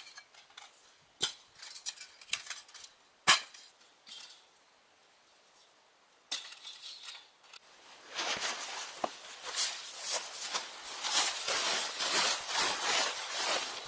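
Metal gazebo-frame poles clinking and knocking as they are handled and fitted together, with two sharp clacks in the first few seconds. About eight seconds in, a dense crinkling rustle begins as a tarpaulin cover is dragged over the frame.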